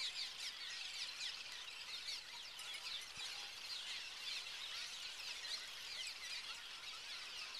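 A large colony of cliff swallows calling all at once as they swarm around their mud nests: a dense, unbroken chatter of many overlapping short, high squeaks, each sliding downward in pitch.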